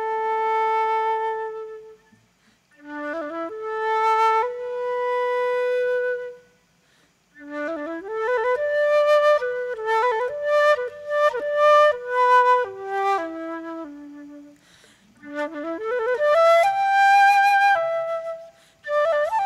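Solo concert flute playing a slow, unaccompanied melody in four phrases separated by short pauses. Each phrase rises into a long held note; the third and longest phrase moves through quicker notes and steps down at its end.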